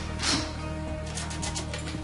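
Background guitar music. Under it, a short scrape near the start and a quick run of light clicks in the second half.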